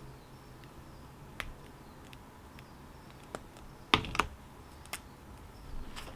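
A few scattered sharp clicks and taps, with a louder pair about four seconds in, over a faint steady background hum.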